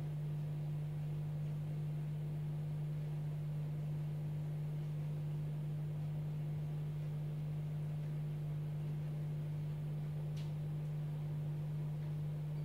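Steady low electrical hum with fainter overtones and a light hiss, unchanging throughout; one faint tick about ten seconds in.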